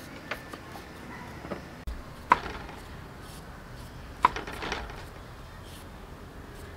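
Kitchen knife and hand peeler working vegetables over a wooden chopping board: a few sharp knocks of blade on wood, two of them loud, about two seconds apart in the middle.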